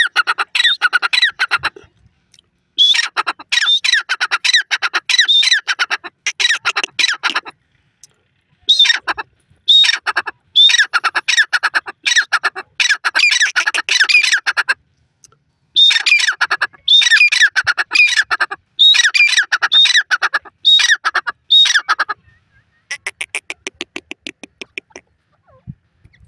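Grey francolin calling: loud bouts of rapid, closely repeated harsh notes, each bout lasting a few seconds with short pauses between, and a fainter run of notes near the end.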